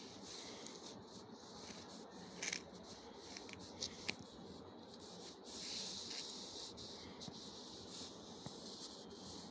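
Faint rubbing of a block magnet pushed over paper among small loose polished diamonds, with a few tiny sharp clicks as the stones tick against the magnet and each other, and a longer scrape a little past the middle.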